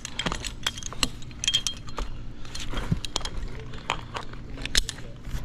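Metal climbing hardware, carabiners and rigging on a climber's harness, clinking and jangling in irregular clicks as the climber shifts among the branches, over a steady low hum.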